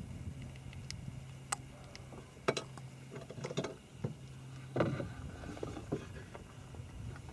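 Scattered light knocks and taps against a canoe, a few of them sharper, over a faint low steady hum.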